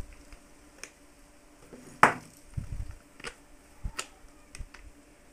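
Hard plastic clicks and knocks as a phone is handled and fitted into a plastic housing cut from a broken blender part. There are about five sharp clicks, the loudest about two seconds in.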